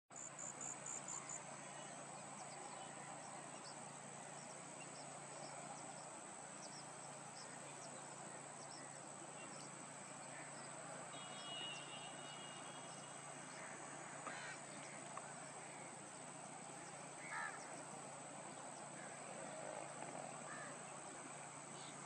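Wetland ambience: a steady high insect drone over a soft even hiss, with a quick run of about five high chirps in the first second or so and a few brief bird calls scattered through.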